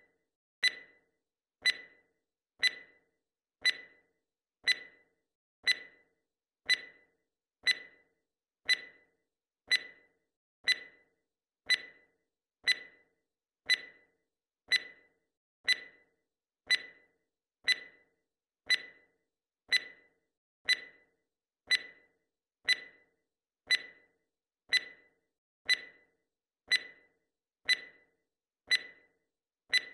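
Clock-tick sound effect marking a running timer: one short, bright tick every second, each fading away quickly, about thirty in steady succession.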